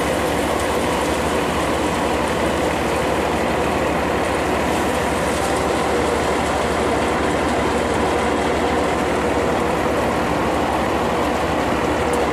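Paddy thresher running steadily as rice sheaves are fed into its hopper: a loud, even mechanical din of the threshing drum and fans that does not let up.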